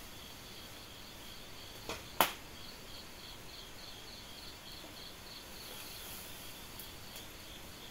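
Crickets chirping steadily in a fast pulsed trill. A short, sharp crack sounds about two seconds in, just after a smaller one.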